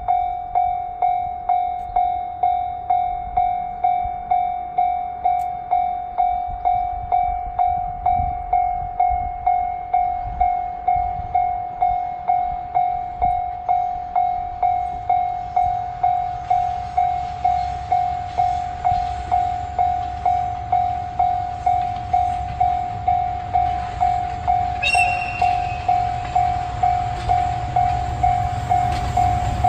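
Japanese level-crossing warning bell ringing in even, fading strikes, about one and a half a second. The deep engine rumble of an approaching DE10 diesel locomotive builds from about halfway, and a short, high locomotive whistle sounds near the end.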